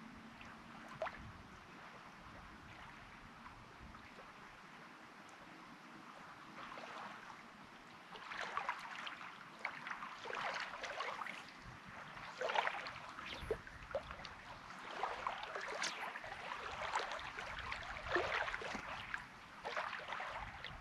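Small waves lapping and splashing against the stones at the lake's edge, faint at first and then in irregular splashes, louder from about eight seconds in.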